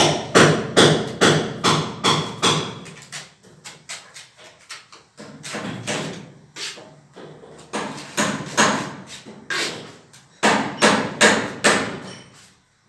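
A hammer or mallet knocking repeatedly, about two to three strikes a second, in runs with short lulls about four seconds in and again near ten seconds.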